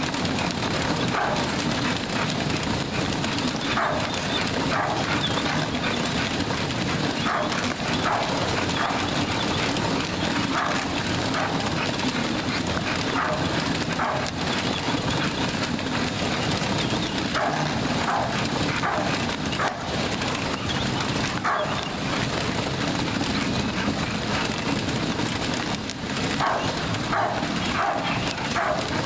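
Dog treadmill running steadily under a trotting bulldog, a constant mechanical rumble with light clicking. Short dog yelps come in several brief clusters over it.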